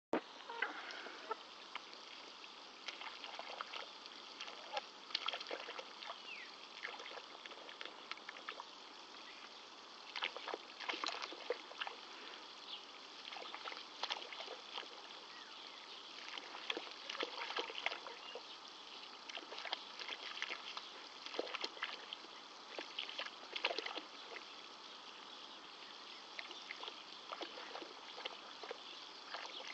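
Garden hose spray nozzle hissing steadily as it sprays onto wet soil and a muddy puddle, with frequent short taps and splashes from hens pecking in the puddle.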